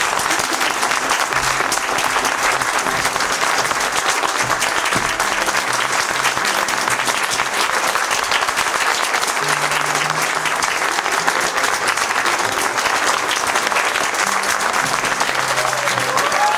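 Audience applauding steadily, a dense, even clapping, with music playing underneath.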